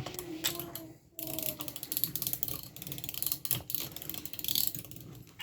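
Hand crank of a Brio wooden toy crane ratcheting with rapid clicks as the hook is lowered, pausing briefly about a second in.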